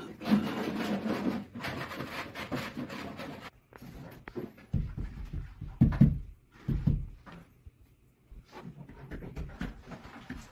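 Trowel scraping tile adhesive across the back of a ceramic wall tile, a rasping scrape lasting about three seconds. Then three dull thumps about a second apart as the tile is pressed and patted onto the wall by hand.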